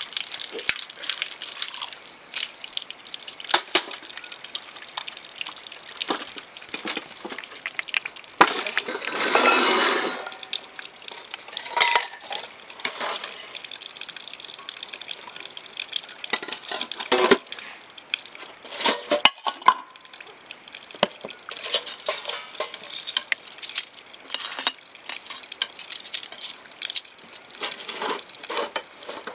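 Kitchen cooking sounds: utensils clinking and knocking irregularly over a steady hiss, with a rush of water lasting about two seconds near nine seconds in.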